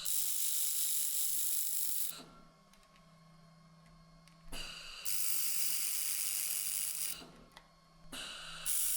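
Handheld laser welder laying short stitch welds on steel sheet: three stretches of high-pitched hissing of about two seconds each, separated by quiet gaps, over a steady low hum.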